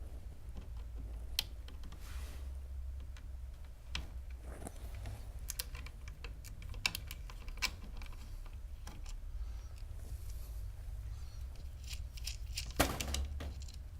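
Scattered light clicks and taps of small metal hardware, the snare drum's lug screws, nuts and washers being handled, with a louder clack near the end, over a steady low hum.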